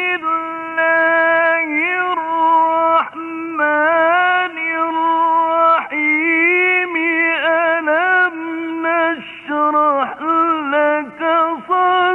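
A man's voice chanting Quran recitation in a melodic, drawn-out style, holding long notes with wavering ornamented turns, in several phrases with short breaths between. It sounds muffled and narrow, like an old recording.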